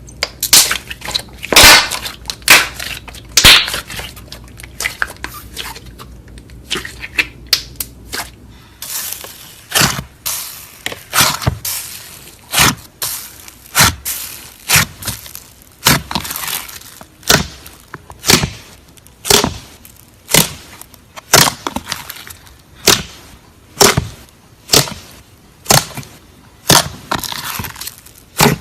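Slime being pressed and poked, giving sharp crackling clicks and pops. They come irregularly at first, then settle into a steady rhythm of about one a second.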